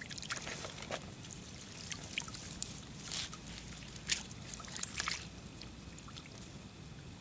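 Faint, irregular short splashing and crackling noises at the water's edge among reeds and lily pads, with a few stronger ones about three, four and five seconds in.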